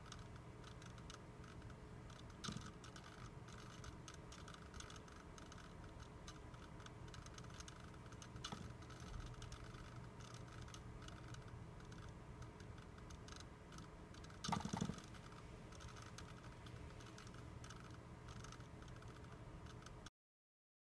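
Servo-driven wooden ball-and-beam rig working: faint, rapid irregular clicking over a low steady hum. Two louder knocks come, one about two and a half seconds in and one near fifteen seconds, and the sound stops suddenly just before the end.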